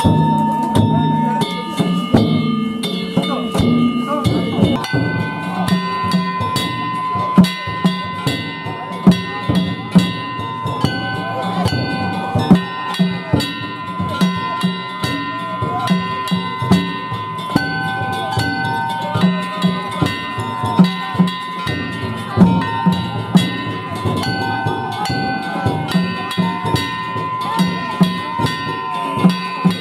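Danjiri festival float music (hayashi): a drum and clanging gongs keep a steady beat, under a high melody of held notes.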